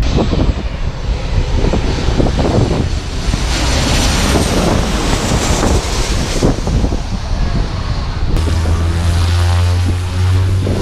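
Jet airliner passing low overhead on its landing approach: the engine noise swells to a peak mid-way and then eases, with gusty wind buffeting the microphone. After a cut about eight seconds in, a steady low drone of aircraft engines.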